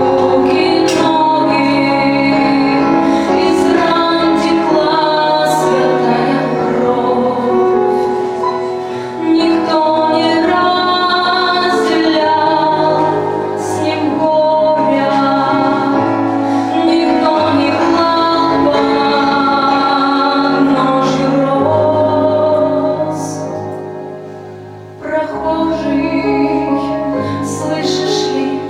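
A song with a woman singing over instrumental accompaniment. The music fades down briefly late on and then comes back in at full level.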